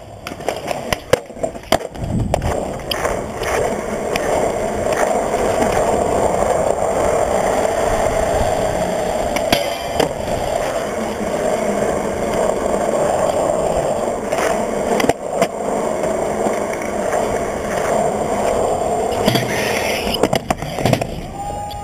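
Skateboard wheels rolling steadily over smooth concrete. Several sharp knocks come about a second in, and a few more come near the end.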